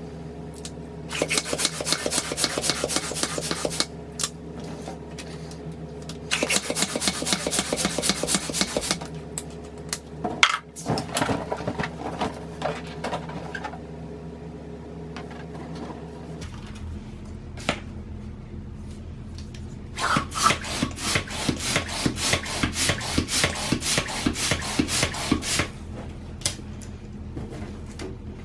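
Hand-held balloon pump worked in quick strokes, a rasping rush of air on each stroke, in three runs of a few seconds each as latex link balloons are inflated. There are a few handling sounds between the runs.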